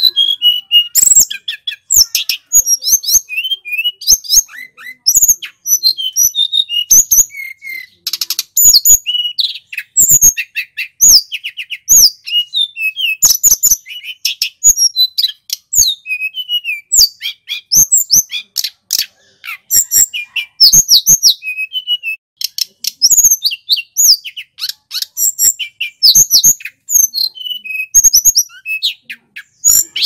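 Male tledekan gunung (sulingan gunung) singing loud and clear without let-up: a rapid, varied stream of high chirps, quick trills and sweeping whistled notes, broken only by brief pauses.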